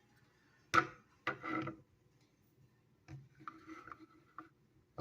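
Handling noise from a small pistol, a Ruger LCP .380: a sharp click about a second in, a second click soon after, then soft rubbing and shuffling.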